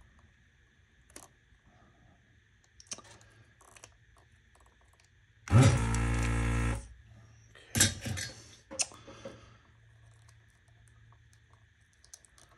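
The vacuum pump of an electric desoldering tool runs for just over a second, a steady motor hum starting sharply about five and a half seconds in. A few sharp clicks follow, and light clicks of handling the circuit board are scattered around it.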